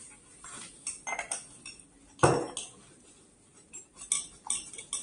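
Small metal clicks and clinks as a CO2 cylinder is handled and screwed into a motorcycle airbag vest's inflator, with a louder knock about two seconds in.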